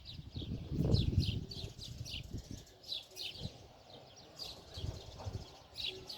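Small birds chirping in quick series of short, high, downward-sliding notes. A low rumble about a second in is the loudest part, with weaker low rumbles later.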